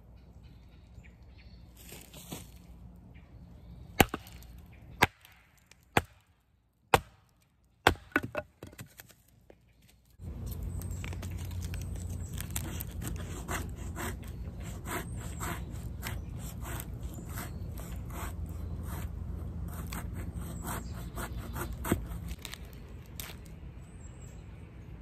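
A stick of wood being split: five sharp knocks about a second apart, with wood cracking. Then a fixed-blade knife carves a feather stick, a rapid run of scraping strokes as thin curls are shaved off the split wood.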